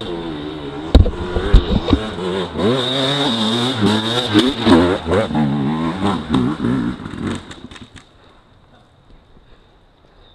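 Off-road motorcycle engine revving hard under load as the bike climbs a steep, rooty dirt slope, its pitch rising and falling with the throttle. There are two sharp knocks about a second in, and the engine sound drops away near the end.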